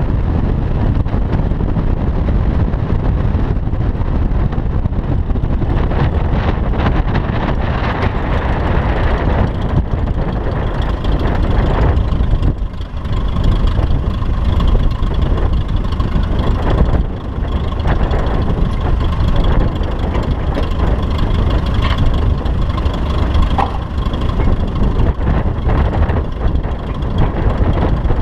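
Heavy wind rush buffeting a microphone on the roof of a car driving fast, with the engine of a Piper Cub flying just overhead droning through it. Partway through, a faint steady whine joins in.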